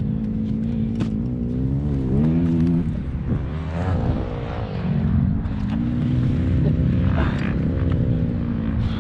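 Single-cylinder four-stroke Kawasaki KX250F motocross bike engine running under load on a dirt track, its revs rising and falling several times as it is ridden through the throttle and gears.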